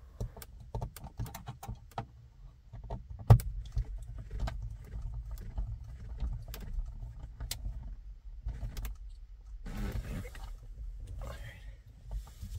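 Scattered light clicks and taps as a Torx T20 screwdriver drives in the screw that locks a rear-view mirror onto its windshield mount, with handling of the plastic mirror housing. There is a louder knock about three seconds in and a short scrape near ten seconds.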